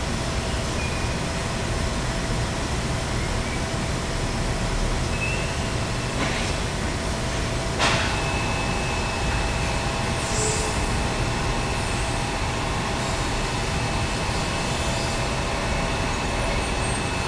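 Steady mechanical drone and hiss of running workshop machinery and ventilation, with a couple of thin steady whines. A sharp click about eight seconds in, after which a thin high whine is heard.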